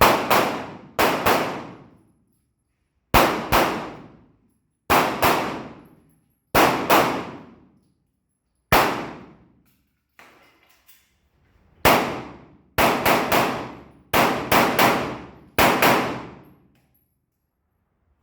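Pistol fired in a course of fire, about fifteen shots, mostly in quick pairs (double taps) a third of a second apart, with pauses of a second or more between pairs.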